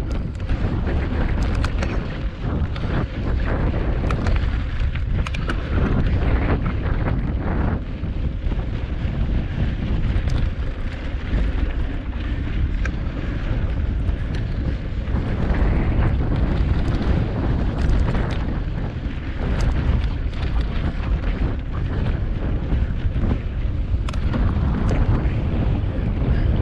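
Wind buffeting the microphone of a camera on a cross-country mountain bike ridden along a rocky dirt trail, with tyre noise and frequent short rattles and clicks from the bike over the rough ground.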